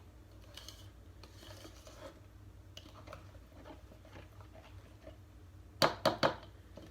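Runny, slimy play-dough mixture being worked in a bowl: faint irregular scraping and small clicks, then three or four sharp knocks close together about six seconds in.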